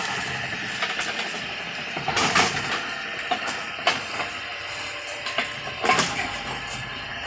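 Steady mechanical noise with a few sharp metallic knocks, about one every two seconds.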